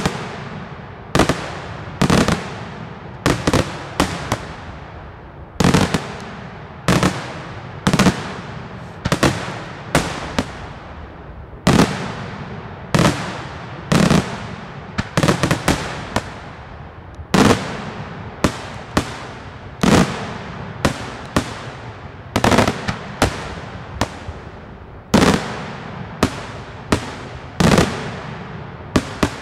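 Daylight fireworks: aerial shells bursting one after another in an uneven barrage. Sharp bangs come about once a second, sometimes two or three in quick succession, and each is followed by a rolling echo.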